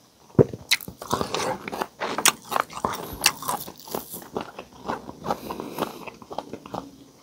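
Close-miked chewing and crunching of a mouthful of crispy pata (deep-fried pork knuckle) with raw onion: a quick run of crisp crunches about a second in, then slower, sparser chews.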